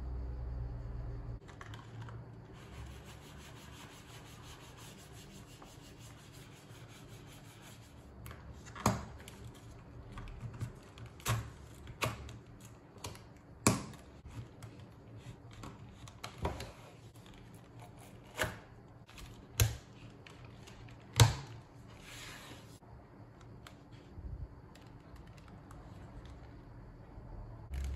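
Hands handling a thick leather knife sheath with metal snap fasteners: about a dozen sharp, irregular clicks and taps through the middle of the stretch, with faint rubbing of leather between them.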